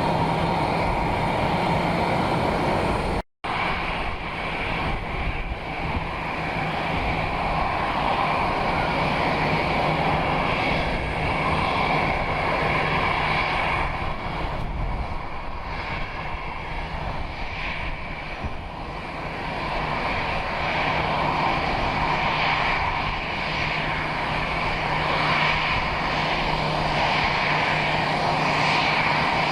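Airplane engines running steadily at the airport, a continuous drone with a low hum. It cuts out completely for a split second a little over three seconds in.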